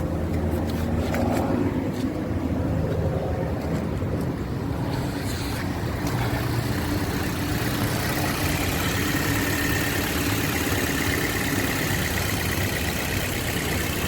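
Four-cylinder petrol car engine idling steadily under air-conditioning load, with a slight misfire that the mechanic hears as the cause of the customer's jerking and hunting. A broader hiss grows stronger about halfway through.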